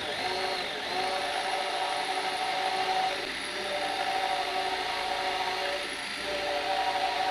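Electric drill running continuously as it bores into a steel RSJ beam, its motor whine dipping briefly about three seconds in and again near six seconds as it comes under load.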